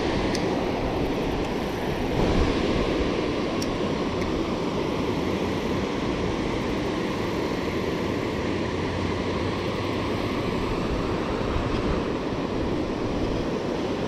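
Steady rushing of water pouring over a low-head dam and churning in the river below it.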